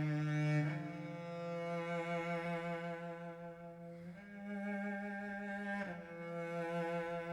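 Slow background score on cello and other bowed strings, holding sustained chords that change every couple of seconds.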